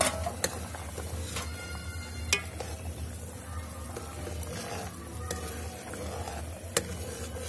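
A long steel ladle stirs simmering potato-and-pea curry in a steel kadhai, giving a handful of sharp clinks and clicks over a soft bubbling sizzle. A low steady hum runs underneath.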